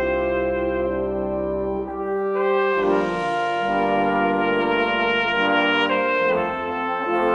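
Brass band playing slow, sustained chords from an elegy, the harmony moving to a new, fuller chord about two and a half seconds in and changing again near six seconds.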